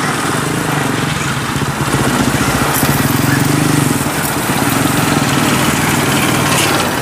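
Diesel engines of a Kubota DC93 combine harvester and a tracked crawler carrier running steadily as they travel along a road. A motorbike passes close by midway, and the engine sound is louder for a couple of seconds.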